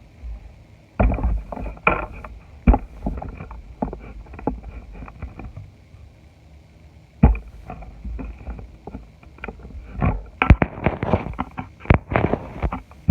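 Crunchy slime with nerds candy mixed in being squeezed and squished, giving irregular bursts of crackles and pops with soft squelching thumps, densest near the end.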